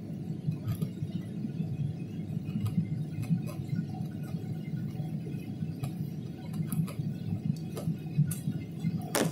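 Steady low rumble of an airliner cabin in flight, from the engines and the air rushing past the fuselage. A few small clicks, and a louder knock near the end.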